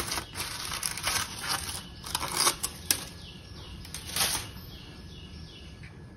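Aluminium foil crinkling and crackling in quick rustling bursts as it is peeled off a cake tin, stopping about four and a half seconds in.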